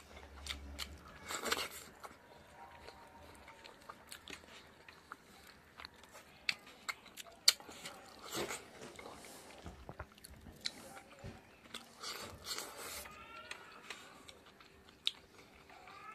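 A man chewing a mouthful of rice and pork fat cooked with axone, eaten by hand, with irregular wet clicks and smacks from mouth and fingers.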